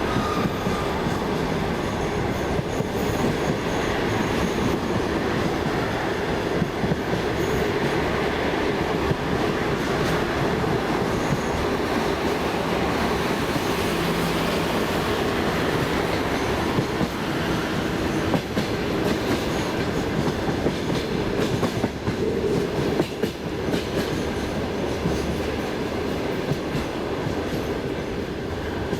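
A passenger train carriage running along the line, heard from inside at the window: a steady rumble with the clickety-clack of wheels over rail joints. Some sharper knocks come past the middle.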